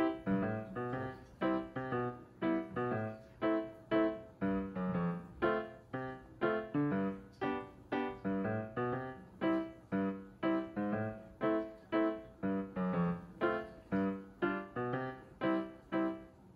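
Background piano music: a steady, even run of notes, about two a second.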